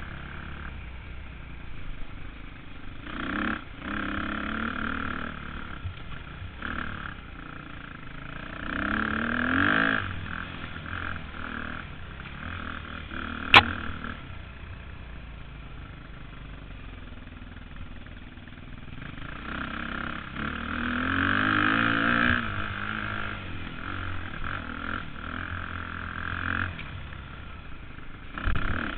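KTM 250 dirt bike engine revving up in surges and easing off between them, the pitch climbing with each surge. A single sharp click sounds about halfway through.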